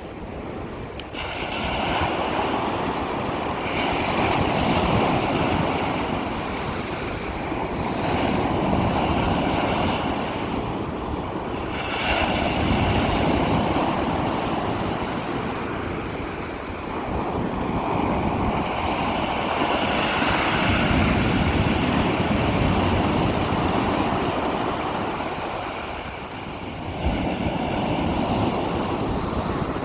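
Ocean surf breaking and washing up a beach: a continuous rushing that swells and eases every several seconds as each wave comes in, with a fresh wave breaking sharply near the end.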